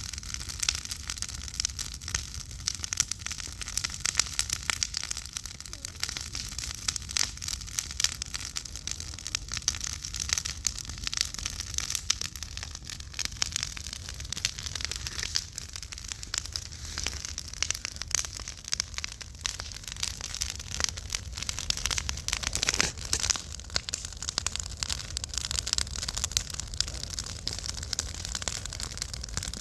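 Fire crackling: dense, irregular pops and snaps over a low steady rumble, with a louder pop about 23 seconds in.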